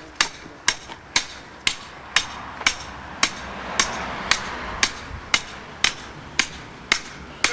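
Hammer blows on the top of a thin upright rod, driving it into the ground: a steady series of sharp ringing strikes, about two a second.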